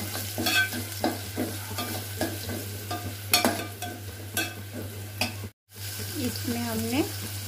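A steel spoon stirs and scrapes fried onions, garlic and chillies in hot oil in an aluminium pot, clinking against the pot over a steady sizzle. The sound cuts out for an instant about five and a half seconds in, then the sizzling and stirring go on.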